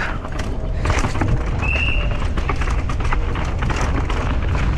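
Mountain bike descending a downhill trail with the camera riding along: wind rumble on the microphone, tyres on dirt and rocks, and the bike rattling over bumps in a rapid run of knocks. A short high squeal comes about two seconds in.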